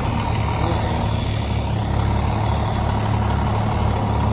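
Large truck engine idling steadily, with a low, even pulse.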